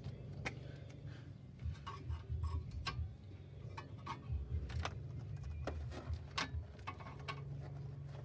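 Scattered sharp metallic clicks and clinks of hand tools and parts being handled while a car's front strut assembly is taken apart, over a steady low hum.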